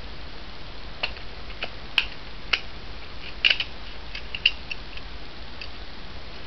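Handling noise: a series of irregular sharp clicks and taps of small hard objects, spread over about five seconds, with the loudest about two, three and a half and four and a half seconds in.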